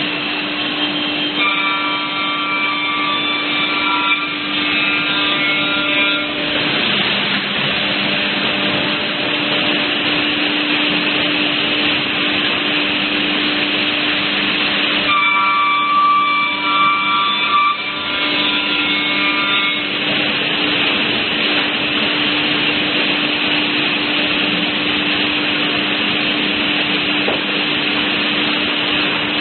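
CNC beam panel saw running, with a steady hum under a constant rush of noise. Twice, for about five seconds each, a whine of several steady tones rises over it as the saw cuts through a wood panel.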